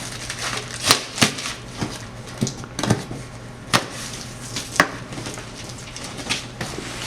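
Brown packing paper crinkling and rustling as a cardboard shipping box is unpacked by hand, with scattered sharp crackles and knocks.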